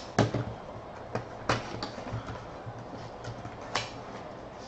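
Cardboard hockey-card box being opened by hand: a few short, sharp clicks and scrapes of cardboard, the loudest about a quarter-second in and another about a second and a half in.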